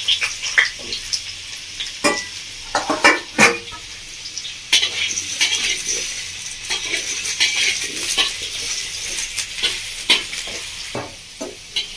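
Potato wedges sizzling as they shallow-fry in oil in a hammered brass kadai. A metal spatula scrapes and clicks against the pan again and again as the potatoes are turned.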